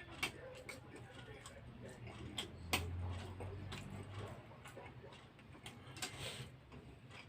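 Scattered light clicks and taps of eating utensils against a bowl, at an uneven pace, with one sharper click about three seconds in.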